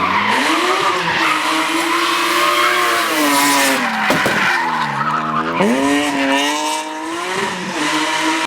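S54 straight-six in a drifting BMW 1 Series, revving hard, its pitch falling and rising again several times as the throttle is lifted and reapplied. Tyres squeal and hiss beneath it, and there is one sharp crack about four seconds in.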